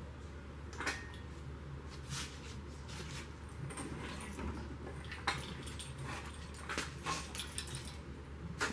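Scattered metallic clicks and knocks as a bare Land Rover 300Tdi engine block is handled and turned on an engine stand, with sharper clanks about a second in, about five seconds in and near the end, over a steady low hum.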